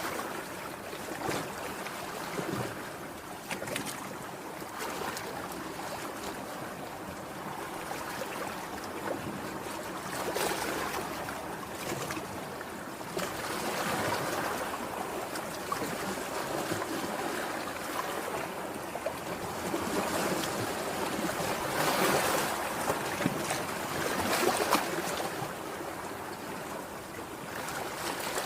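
Sea waves washing onto the shore: a steady rushing surf that swells and falls several times, loudest a little over three quarters of the way through.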